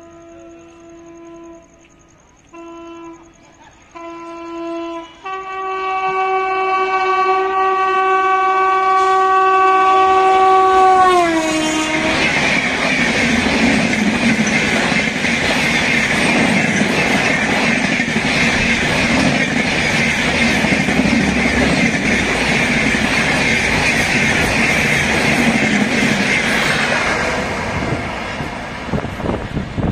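WAP-7 electric locomotive's horn sounding three short blasts and then one long blast, its pitch dropping as the locomotive passes at about 130 km/h. Then the loud, steady rush and clickety-clack of the express's coaches going by at speed, fading near the end.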